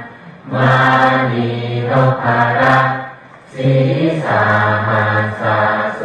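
Voices reciting a Pali Buddhist chant in unison on a steady, low, nearly unchanging pitch, in phrases with a short pause near the start and another about three and a half seconds in.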